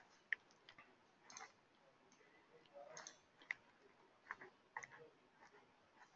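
Near silence: room tone with a scattering of faint, irregular clicks and ticks.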